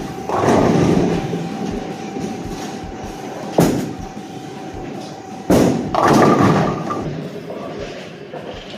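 Bowling ball rolling down a wooden lane with a low rumble, then crashing into the pins about three and a half seconds in. A second loud crash and clatter of pins and machinery follows about two seconds later.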